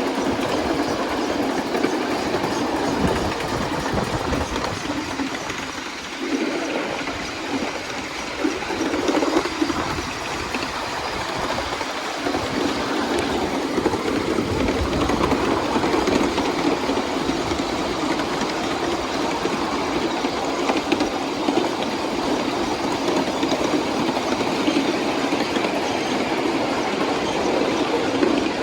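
A 7¼-inch gauge miniature train rolling along its track, with the steady clatter and rattle of steel wheels on the rails and of the cars.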